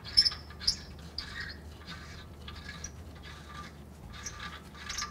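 Short, soft squeaky rubs about every half second as a gloved hand spins a loosened catalytic converter flange bolt out of its threads by hand.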